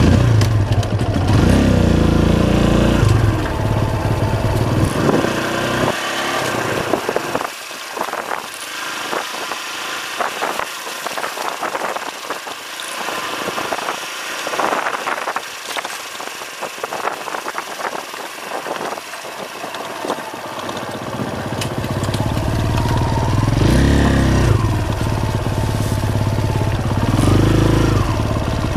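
Trail motorcycle ridden along a bumpy dirt track, its engine revving up and down. Through the middle stretch the engine drops low and the clatter and rattle of the bike over the rough ground comes to the fore, then the engine pulls hard again with a couple of revs near the end.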